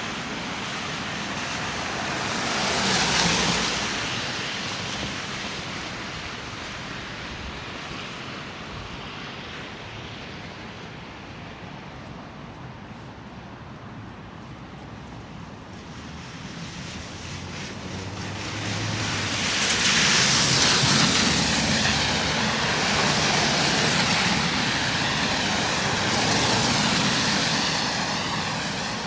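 Road traffic passing close by, with a steady rush of engines and tyres. One vehicle swells past about three seconds in, and heavier traffic goes by from about twenty seconds on.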